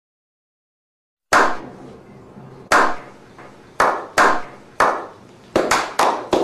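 Silence, then a slow clap: single hand claps with an echoing tail, the first about a second in, coming closer and closer together as several people join in.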